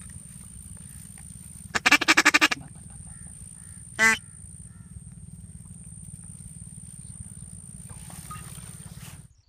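Duck quacking: a loud, rapid run of about ten quacks about two seconds in, then a single sharp quack two seconds later, over a steady low rumble.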